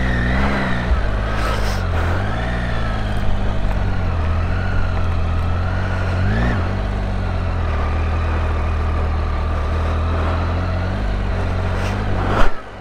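Triumph Tiger 800's three-cylinder engine running on the move, its pitch rising and falling with the throttle, with a quick rev and dip about halfway through. A brief loud knock comes near the end, and the sound then drops away.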